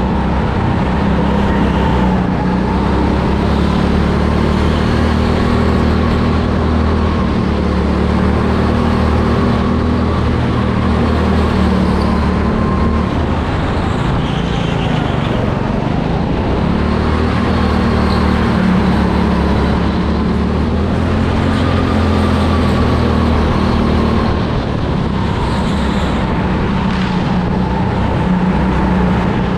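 Go-kart engine running hard, heard from the driver's seat, its pitch rising and falling repeatedly as the kart is driven round the track.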